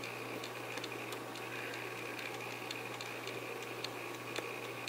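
Quiet room tone: a steady low hum and soft hiss, with faint small clicks at irregular intervals.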